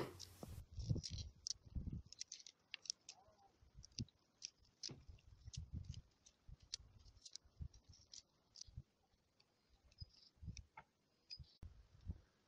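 Faint, irregular snapping and clicking of fresh wild salad greens being broken into small pieces, with soft thumps now and then.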